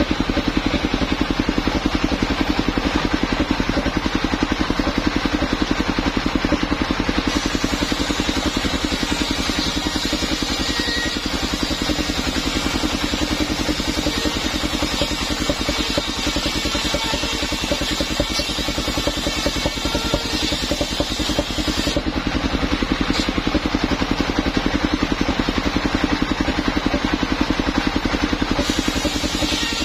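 Engine of a mobile circular sawmill running steadily with a fast, even chug. A circular saw blade ripping a plank lengthwise adds a hissing rasp from about seven seconds in until about twenty-two seconds, and again near the end.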